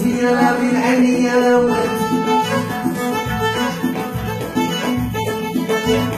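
Two violins (kamanjat) bowed upright on the knee in the Moroccan manner, playing an instrumental passage of zaari folk music over a steady low beat.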